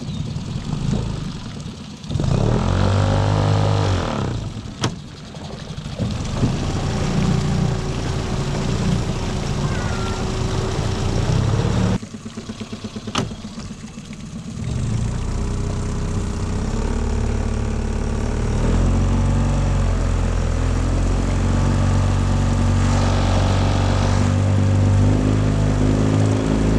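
Tiller outboard motor pushing a small aluminium boat, revving up about two seconds in. Near the middle it drops back to a slow, pulsing idle for a couple of seconds, then throttles up again and runs steadily under way.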